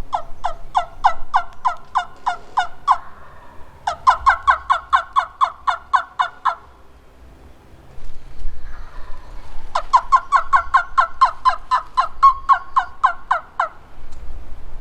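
Three runs of rapid turkey yelping, each a quick string of sharp, falling notes at about four to five a second, lasting about three seconds, with short pauses between the runs.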